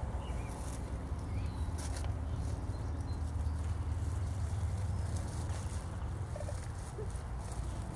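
Low background rumble that swells through the middle and eases off toward the end, with a few faint clicks.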